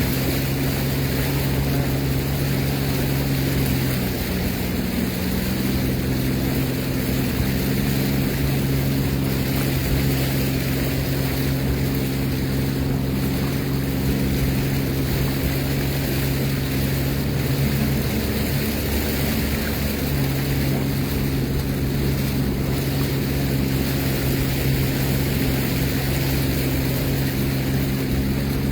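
Sea-Doo Fish Pro personal watercraft engine running steadily under way, with a constant rush of water and wind. The engine note shifts briefly twice, about five seconds in and again near twenty seconds, as the throttle changes.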